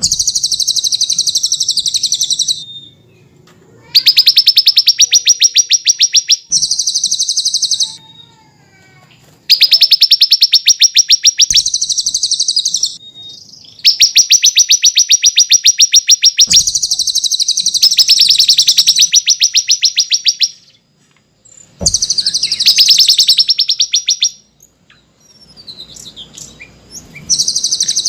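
Small songbirds singing in loud bursts of rapid, evenly repeated high chirps. Each burst lasts about two to six seconds, with short pauses between. This is a masteran tutor recording of perenjak, cililin and ciblek song used to train caged songbirds.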